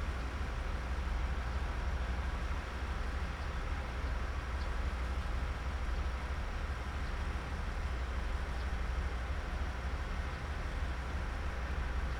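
Diesel railcar engine idling, a steady low hum.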